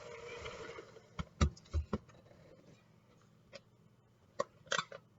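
Utensil knocking and clicking against a mixing bowl while buttercream frosting is stirred and blended, a series of irregular sharp knocks.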